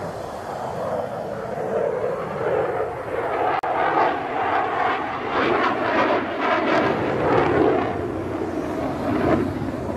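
Jet noise from the single turbofan engine of a HAL Tejas fighter making a display pass, a loud rushing roar. It cuts out for an instant about a third of the way in, then builds louder and rougher through the middle and eases slightly near the end.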